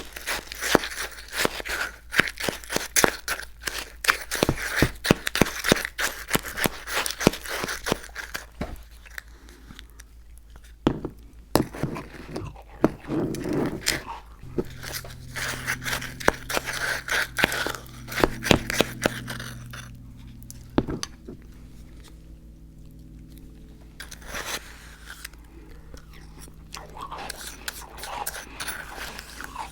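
Close-miked crunchy chewing and biting of icy slushie, in quick dense crackles. The crackles ease off in the middle, where a low steady hum runs for several seconds.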